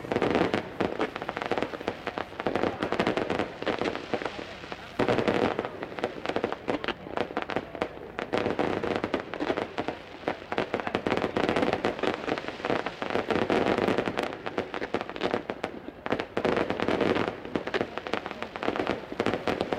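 Aerial fireworks going off in a dense, unbroken stream of bangs and crackling, with a louder surge of bursts about five seconds in.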